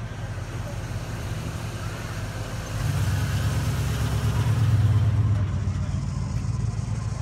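A car engine idling steadily, growing louder about three seconds in and easing back near the end.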